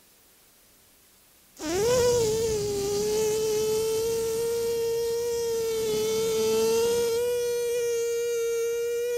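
A man humming one steady, fairly high note through closed lips, held for about seven and a half seconds from about a second and a half in, as breath is let out in a yoga breathing exercise.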